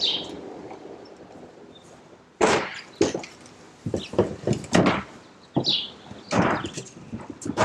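Kumquat tree branches cracking and snapping in a run of irregular sharp knocks, starting a little over two seconds in. A few short high chirps are heard over them.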